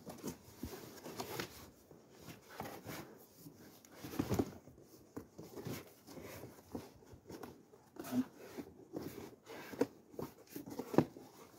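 Cardboard ammunition boxes of shotgun shells being handled and repacked: irregular rustling, scraping and light knocks, with one sharper knock near the end.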